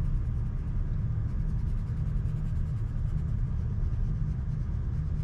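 Steady low rumble of background noise, with faint, quick scratching of a colored pencil stroking on paper from about a second in.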